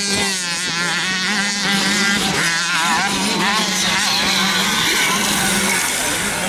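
Several motocross motorcycle engines revving up and down as the bikes ride the track, their pitch rising and falling constantly over a steady low drone.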